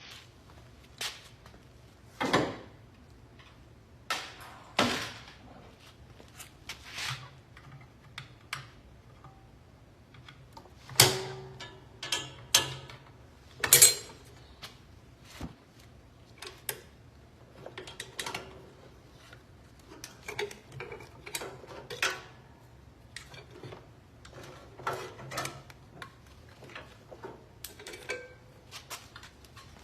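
Irregular clanks, clicks and knocks of metal panels, parts and hand tools being handled while a direct drive washing machine is taken apart. The loudest knocks fall about a third of the way in.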